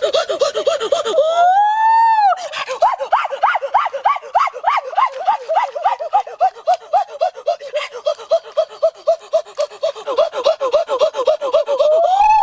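A person's voice making rapid, repeated high-pitched gasps or pants, about five a second, with a long rising-and-falling "ooh" about two seconds in and another near the end.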